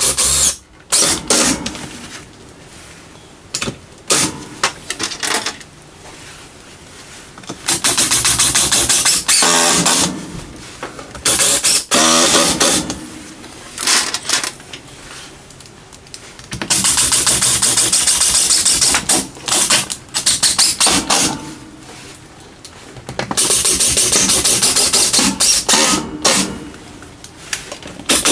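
Power screwdriver running in repeated bursts of a few seconds with pauses between, driving metal-roofing screws through a sheet-metal wall-thimble plate into the wall.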